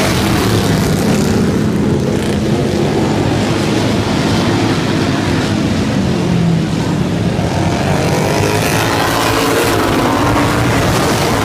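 Racing lawn mower engines running hard, with several engines' pitches shifting up and down as they rev and pass.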